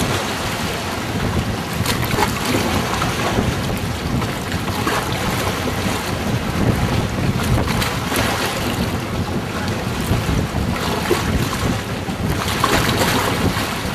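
Steady wind noise buffeting the microphone, a continuous low rumbling rush.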